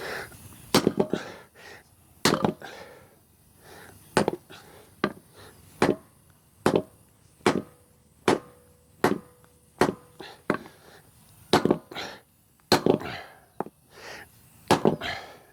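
Hammer blows on a heated, seized pitman arm, struck to shock it loose from the steering box shaft: about twenty sharp metal strikes, roughly one a second, some in quick doubles, with a short metallic ring around the middle.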